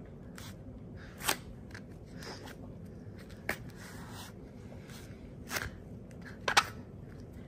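Faint, scattered soft clicks and rustles, about six in several seconds, over a low steady hiss: a hand and a baby's feet moving and brushing against a foam play mat.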